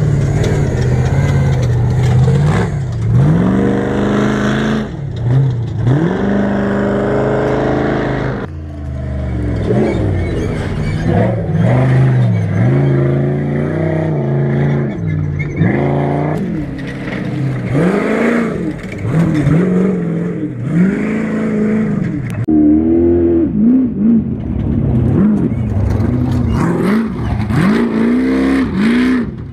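An off-road vehicle's engine under way, revving up and falling back over and over as the throttle is worked. The rises and falls come about once a second in the second half.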